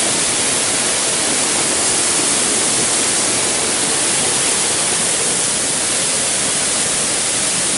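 A waterfall pouring down a rock face, rushing steadily and loudly.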